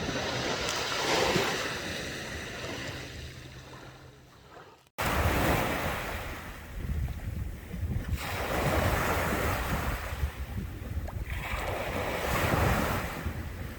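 Sea waves washing in and out in repeated swells, with wind rumbling on the microphone. The sound cuts off abruptly about five seconds in and comes straight back.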